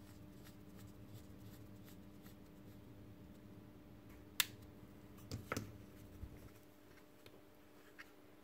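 Faint handling of a small plastic robot-arm part while a long screwdriver turns a screw into it, over a low steady hum; a sharp click about four and a half seconds in, a few quieter clicks just after, and light ticks near the end.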